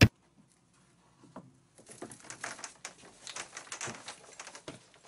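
A sharp click, then irregular rustling and scraping as hands handle the coil of new white plastic water pipe at the cored hole in the foundation wall.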